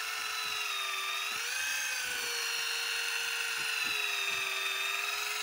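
Daiwa electric deep-drop reel's motor winding in line under the load of a bent rod: a steady whine that rises slightly in pitch about one and a half seconds in, then settles.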